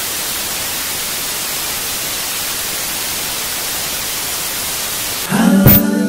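Television static: a steady, loud white-noise hiss. About five seconds in it cuts off with a click, and voices singing a held chord begin.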